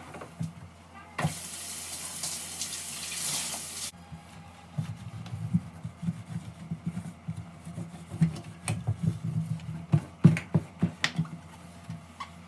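A cloth wiping and rubbing over a glass-top gas hob, with many short irregular rubs and light knocks in the second half. Near the start there is a steady hiss lasting about three seconds.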